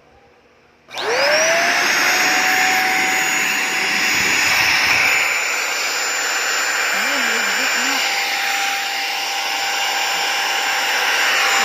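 Simplus vacuum cleaner switched on about a second in, its motor whining up in pitch to full speed. It then runs steadily with a high whine over rushing air while its suction is tested.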